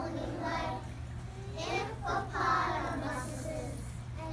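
A group of young children singing together, over a steady low hum.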